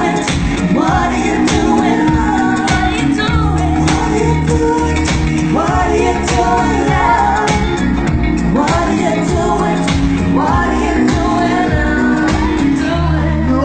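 Loud pop song with singing over a steady beat; a heavier bass line comes in near the end.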